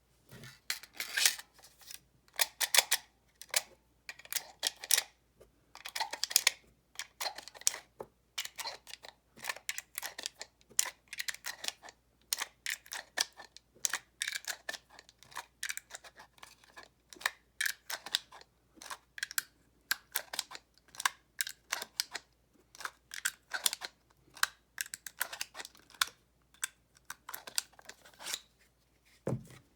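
10mm cartridges pressed one after another into a 15-round Glock 20 magazine with a PETG plastic syringe-style speedloader: a continuous run of clicks and short metal-on-plastic scrapes. A low thud comes near the end.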